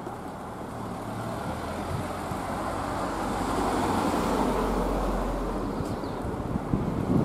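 A car driving past on the street, its engine and tyre noise swelling to its loudest about four to five seconds in and then fading. A few low bumps come near the end.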